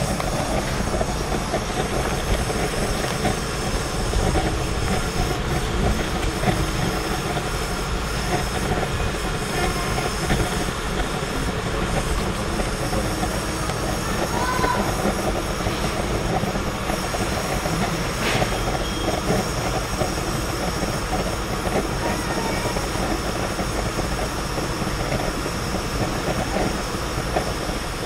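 Forced-draft pellet cook stove burning steadily, a continuous rushing roar of its fan-blown flame under a pot of water.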